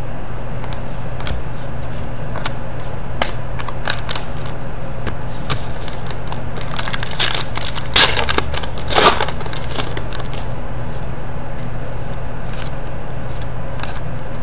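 Trading cards and a foil pack wrapper being handled on a table: scattered light clicks and rustles, with louder crinkling about seven to nine seconds in, over a steady background hum.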